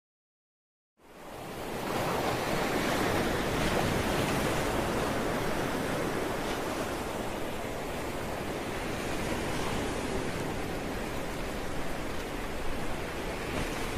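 Steady rushing noise of wind and sea on a ferry's open deck, fading in about a second in.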